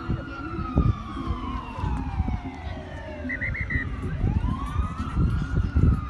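A wailing siren sweeps slowly down in pitch for about four seconds, then rises again, over an uneven low rumble of background noise.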